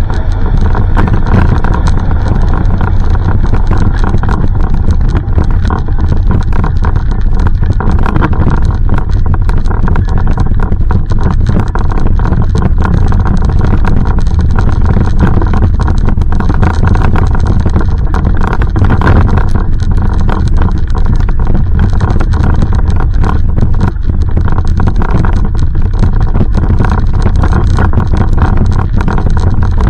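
Loud, steady low rumble with a constant crackle: wind and handling noise on the microphone of a camera carried at walking pace.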